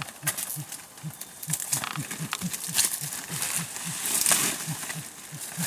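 Rustling and crackling of dry leaves, ferns and branches as a person pushes through forest undergrowth. Underneath, a low pulse repeats about three times a second throughout.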